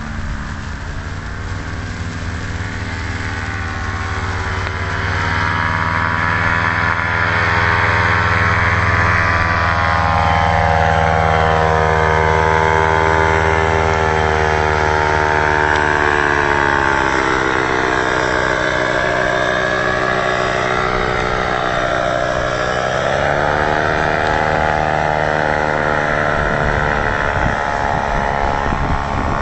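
Paramotor engine running in flight, growing louder over the first several seconds as it flies in low overhead. Its pitch slides down as it passes and shifts again about three-quarters of the way through as it turns away.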